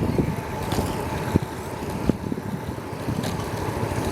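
Wind buffeting the microphone over rumbling road noise while riding a bicycle, with a couple of sharp knocks about a second and a half and two seconds in.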